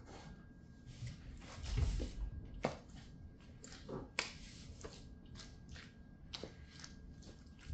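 Stiletto heels of patent-leather boots stepping and grinding in squashed tomato pulp on a hard floor: irregular heel taps and clicks mixed with wet squelching, with a heavier thud just under two seconds in.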